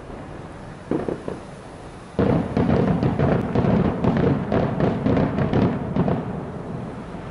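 Fireworks display: a single bang about a second in, then a rapid barrage of many bangs and crackles from about two seconds in, lasting about four seconds before thinning out.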